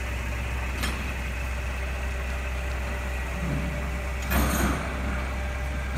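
Propane-fuelled Nissan forklift engine idling with a steady low hum. A small click about a second in and a brief clatter a little over four seconds in.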